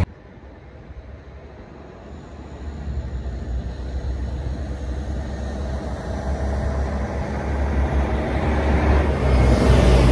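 Oshkosh deicing truck approaching and driving past, its engine and tyre noise a low rumble that grows steadily louder and is loudest near the end as the truck goes by.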